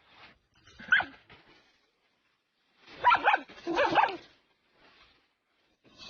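Dog barking in short calls: one about a second in, then several close together around three to four seconds in.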